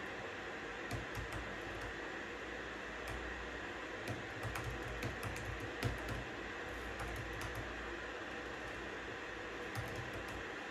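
Computer keyboard typing in scattered short runs of keystrokes, the thickest cluster in the middle, over a steady hiss of white noise.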